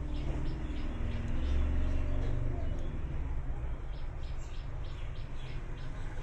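Steady low machine hum, with short high bird chirps repeating over it.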